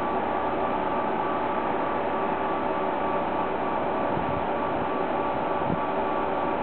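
Class 139 Parry People Mover railcar standing at the platform with its flywheel drive running: a steady hum with several high, steady whining tones over it.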